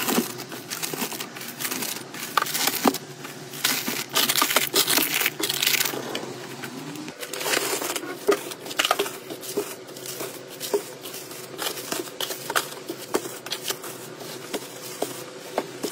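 Plastic-wrapped tissue packs crinkling and rustling as they are pushed and stacked onto a wooden shelf, with soft knocks and taps as they land. A dense crinkling stretch comes in the first half, then sparser taps and rustles.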